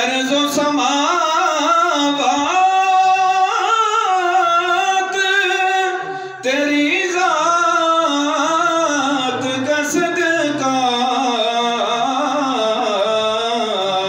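A man singing a naat (Urdu devotional poem in praise of the Prophet) solo, in long melodic phrases with ornamented held notes. There is a brief pause for breath about six seconds in.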